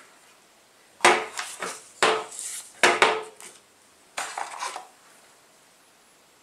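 Things being unpacked and laid on a glass tabletop: four short clattering bursts of knocks and paper rustle, about a second apart, from the router's paper manuals and accessories being set down and handled.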